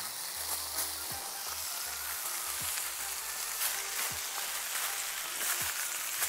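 Fish cooking in hot pans with a little hot water added for steam, sizzling with a steady hiss.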